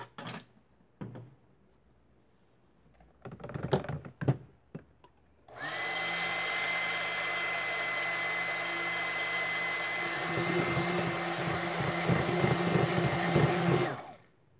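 Stick blender running in a jug of green goat-milk soap batter: a steady motor whir with a high whine, starting about five seconds in and stopping near the end, turning choppier in its second half. Before it starts, a few light knocks.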